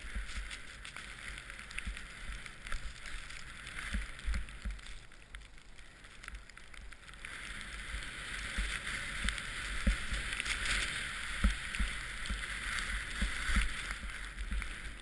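Rushing hiss of riding fast through deep powder snow, with low thumps and knocks as the mounted camera is jolted. The hiss grows louder and denser about seven seconds in.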